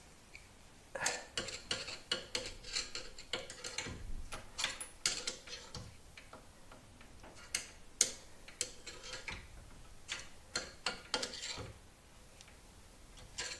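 Irregular metallic clicks and clinks of hand tools against steel suspension parts, some ringing briefly, with pauses between.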